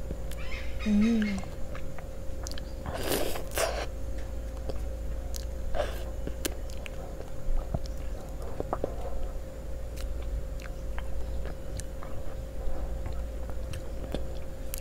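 Close-up eating sounds: a pink ice cream bar being bitten off its wooden stick and chewed, with wet mouth clicks and a louder bite about three seconds in. A steady low electrical hum runs underneath.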